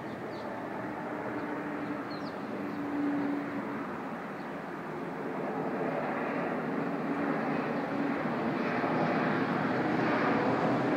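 Jet airliner on low final approach, its engine noise a steady rush with a faint hum, growing louder as the plane comes closer.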